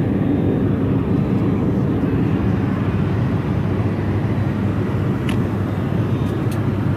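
Steady airliner cabin noise in flight: an even rumble of engines and airflow, strongest low down, with a faint steady whine above it. A couple of faint clicks come near the end.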